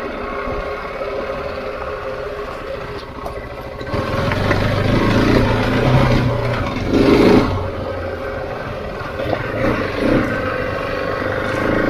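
Husqvarna 701 single-cylinder four-stroke engine running as the motorcycle is ridden off-road. The throttle opens about four seconds in, followed by several short surges in revs.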